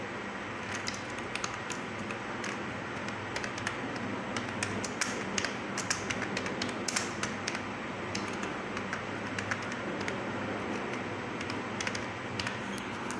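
Typing on a computer keyboard: quick, irregular key clicks over a steady background hiss.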